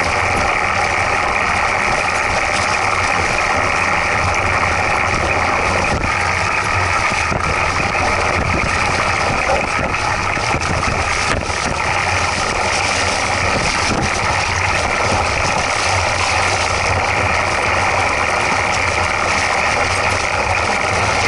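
Mountain bike rolling along a trail covered in dry leaves, heard from a camera mounted on the bike: steady loud tyre and wind noise with a few faint knocks.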